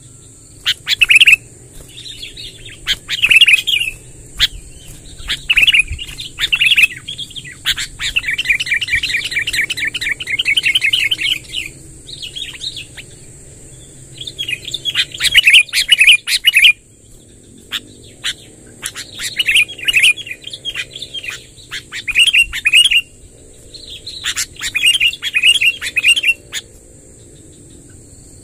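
Sooty-headed bulbul singing long rolling, chattering phrases in repeated bursts of one to four seconds with short pauses between. A faint steady high whine runs underneath.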